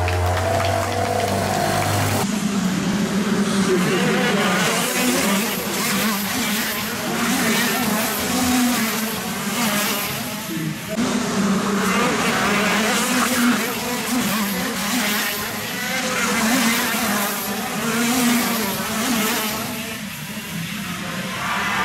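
Racing kart engine going past close by, then kart engines at race speed whose pitch keeps rising and falling as they rev up and back off.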